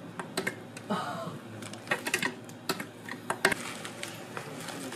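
Irregular light clicks and taps of handling while cream is piped into a paper-wrapped sponge cake, with a faint voice briefly about a second in.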